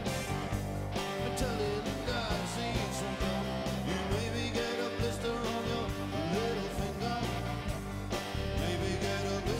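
Background music: a rock song with guitar and singing.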